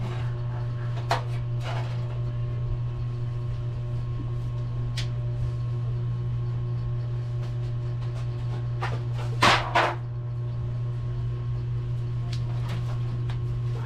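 Cables, fans and metal parts being handled inside an opened desktop computer case: a few light clicks and knocks, and a louder double clatter a little past halfway, over a steady low hum.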